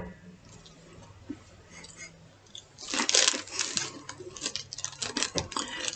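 Plastic snack packaging crinkling and rustling as it is handled, starting about three seconds in after a quiet stretch.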